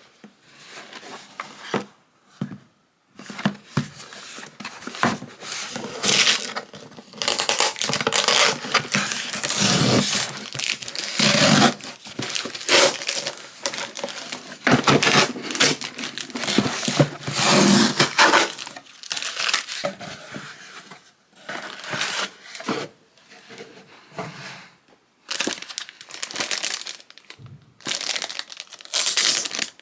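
Crinkling and rustling of something being handled, coming in irregular bursts with short pauses.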